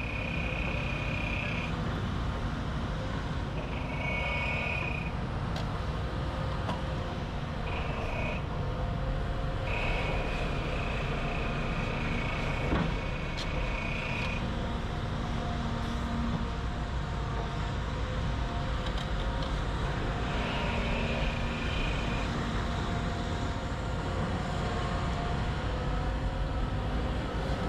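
Heavy construction machinery running, a steady diesel engine rumble. A high steady tone sounds over it several times, once for several seconds.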